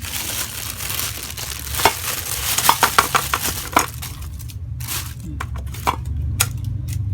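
Plastic packaging crinkling and rustling, with a run of light clicks and knocks as the rice cooker's accessories are handled, over a steady low hum.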